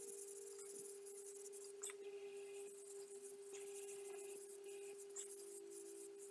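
Wood lathe running with a faint steady hum while a cloth rubs Yorkshire Grit abrasive paste onto the spinning wooden box, a soft continuous rubbing with a few brief scratchy strokes.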